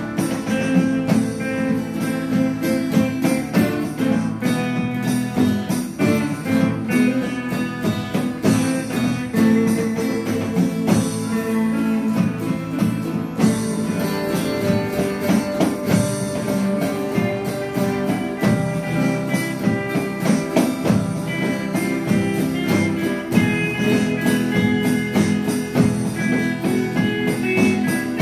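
A small band playing live: an electric lead guitar over two strummed acoustic guitars, with drums keeping the beat.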